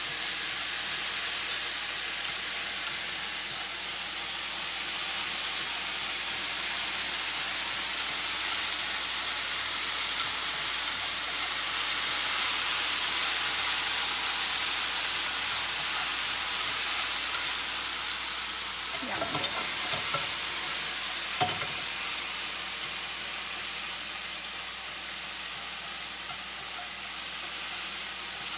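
Food sizzling steadily in a nonstick frying pan as it is stirred with chopsticks, with a few light clicks of the chopsticks against the pan.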